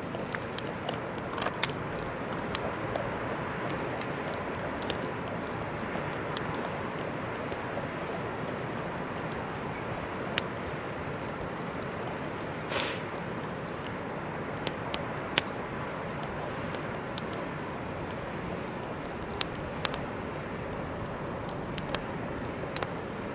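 Open wood fire crackling, with sharp clicks scattered irregularly over a steady rushing noise, and a brief louder hiss about halfway through.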